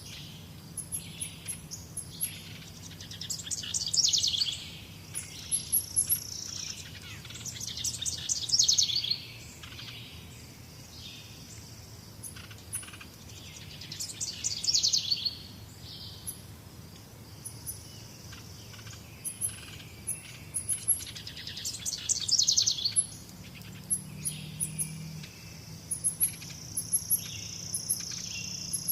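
Several birds singing and chirping: a loud, rapid song phrase about every six or seven seconds over many short, high chirps, with a steady high buzz joining in near the end.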